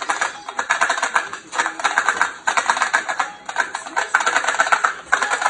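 A dog's potty bell, a string of small jingle bells, rung frantically over and over as the dog paws at it. It comes as rapid jangling in short bursts, one after another with barely a pause.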